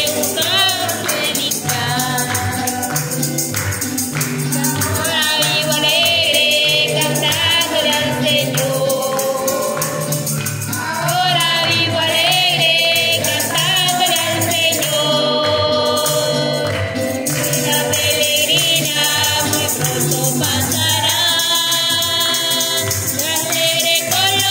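Live gospel-style chorus singing accompanied by keyboard, acoustic guitar and upright double bass. Bass notes pulse steadily on the beat, with a high percussive rattle keeping time.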